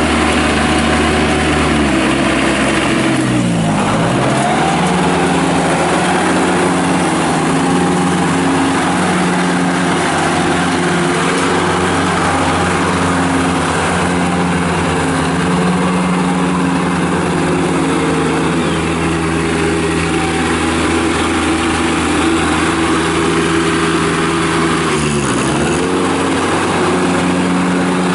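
2015 John Deere X758 garden tractor's three-cylinder Yanmar diesel running steadily as the tractor drives. Its pitch dips sharply and recovers about three seconds in, and again near the end.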